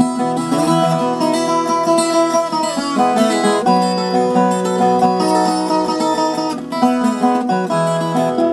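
Viola caipira, the Brazilian ten-string guitar, playing an instrumental moda de viola: plucked notes and strums in a continuous flowing melody.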